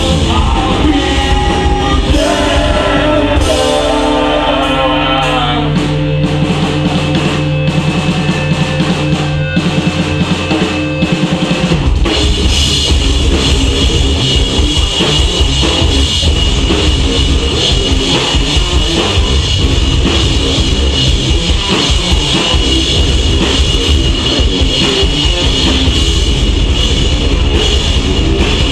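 Live pop punk band playing loud: electric guitars, bass and drum kit. About twelve seconds in, the band drops into a denser, driving full-band section with fast, steady drumming.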